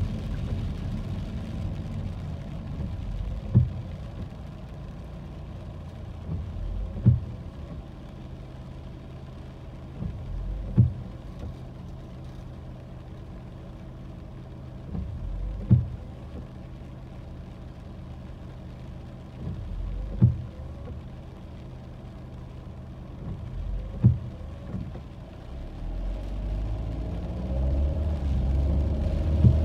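Inside a car on a wet road: a steady low road-and-engine rumble, with a short knock from the windshield wiper at each sweep, every four to five seconds as on an intermittent setting. The rumble grows louder near the end.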